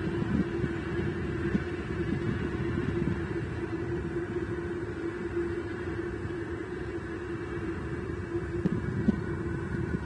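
Wind buffeting an outdoor camera microphone, a flickering low rumble, over a steady low hum.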